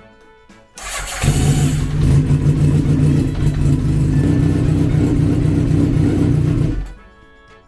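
Honda CBX750F's air-cooled inline-four motorcycle engine started about a second in and running steadily, its first run after a new head cover gasket was fitted. It cuts off abruptly near the end.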